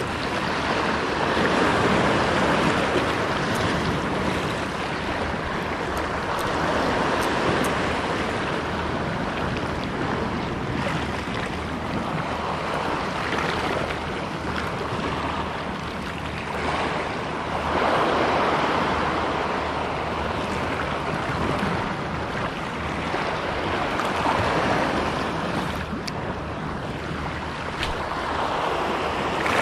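Seawater washing and lapping at the shore, swelling and easing about every five to six seconds, with wind on the microphone.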